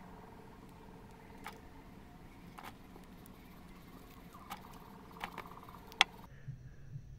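Small sharp clicks and ticks from handling a circuit board and bending a resistor's wire leads through it, five or so spread out, the sharpest about six seconds in. A steady background hiss with faint tones runs beneath and cuts off just after that click.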